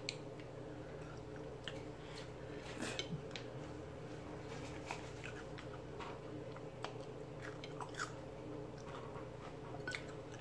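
Close-miked chewing and mouth smacking as someone eats pork neck bones with pinto beans and rice by hand, with scattered small clicks, over a faint steady hum.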